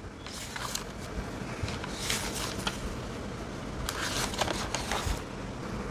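Faint intermittent rustling and handling noises, a few soft scratchy smears a second or two apart, over a low steady background hum.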